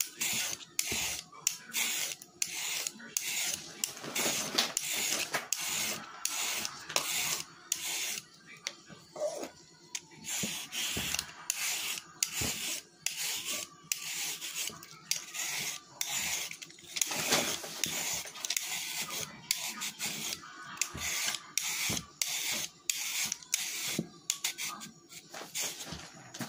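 Salad vegetables being worked by hand, a rapid run of short scratchy strokes, about two a second, with brief gaps between them.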